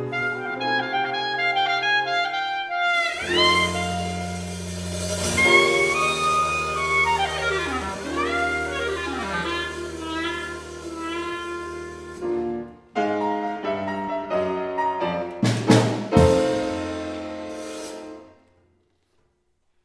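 Swing big-band jazz: a solo clarinet plays sweeping rising and falling runs over held band chords. A sharp ensemble hit comes near the end, and the sound rings away into a short silence.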